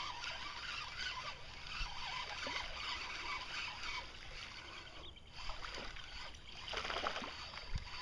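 Water lapping and splashing around a kayak while a hooked largemouth bass is played, with small irregular splashes and a denser patch of splashing near the end.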